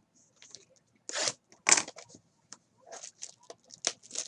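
Trading-card box packaging being torn open: two short rips a little after a second in, followed by crinkling and light clicks of wrapper and cardboard.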